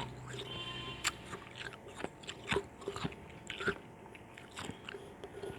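Close-up biting and chewing of frozen orange juice ice chunks: irregular sharp crunches, a few louder ones among softer chewing.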